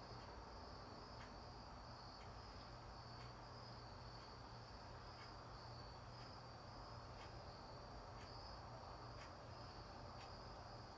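Crickets chirping: a faint, steady pulsing trill, with a soft click about once a second.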